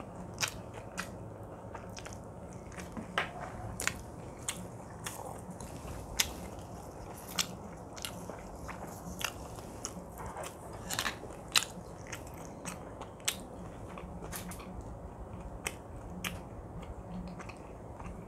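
Close-miked chewing and wet mouth sounds, with sharp, irregular clicks one or two times a second.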